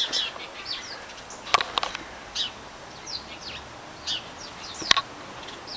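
Small birds chirping repeatedly in short, high, downward-sweeping notes, with a few sharp clicks: a quick cluster about one and a half seconds in and a single one near five seconds.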